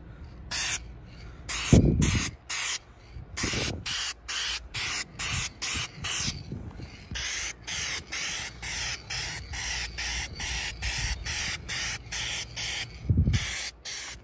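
Aerosol spray paint can hissing in many short bursts, about two a second, as touch-up paint is sprayed in quick passes over a sanded chip repair on a car bumper. A few low thumps come in among the bursts, the loudest about two seconds in.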